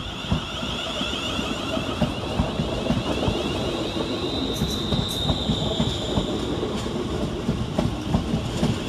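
West Midlands Railway Class 350 Desiro electric multiple unit pulling away past the platform: a steady rumble with the wheels clicking over the rail joints and a high whine that swells in the middle of the pass.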